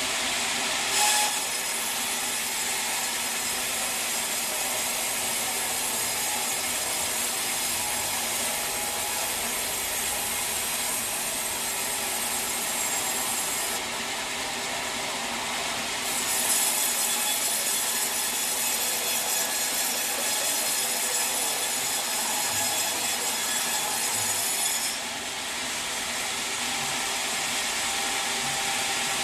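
Sawmill saw cutting through a teak log in two long cuts, the first starting about a second in and the second after a short lull about halfway through, with the saw's motor running steadily between and after the cuts.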